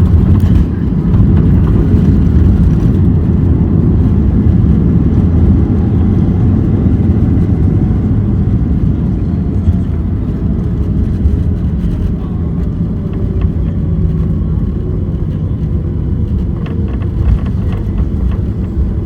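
Jet airliner slowing down after landing: a loud low rumble with a faint whine that falls slowly in pitch as the engines spool down, the noise easing gradually.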